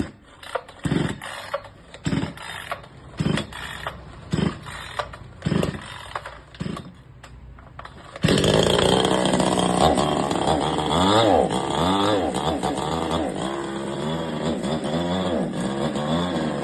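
Chainsaw being pull-started after a service: about seven pulls on the starter cord, roughly a second apart. It catches a little after eight seconds, revs up and down a few times, then runs steadily.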